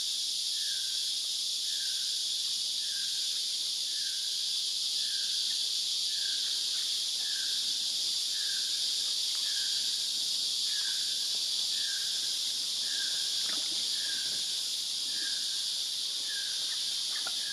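Steady high-pitched insect chorus, with a short, lower call repeating about once a second.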